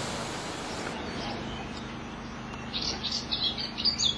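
A small songbird singing a quick run of high chirps a little under three seconds in, over a steady background hiss and low hum.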